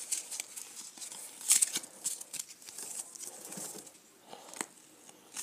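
Pokémon trading cards being flicked through by hand, one slid over another: a string of short papery scrapes and clicks that thins out after about four seconds.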